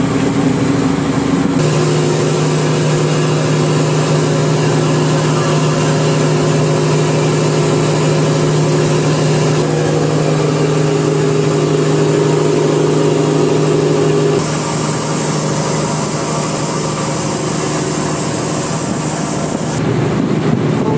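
A fishing boat's engine running at a steady speed, a loud, even drone. The pitch and tone shift a few times as the shots change.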